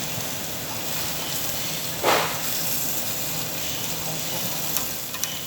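Meat sizzling on a Korean barbecue table grill, a steady hiss, with a brief louder burst about two seconds in.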